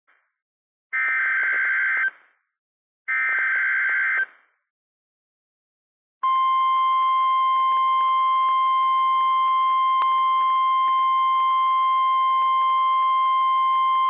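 Emergency Alert System tones: two one-second bursts of buzzy data tones (the SAME header) about a second and three seconds in, then from about six seconds in a loud, steady single-pitch 1050 Hz warning alarm tone, the signal that a weather warning such as a tornado warning follows.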